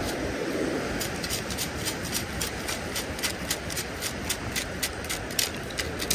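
CKG stainless steel sand scoop shaken to sift wet beach sand, with sharp rattles about four times a second starting about a second in.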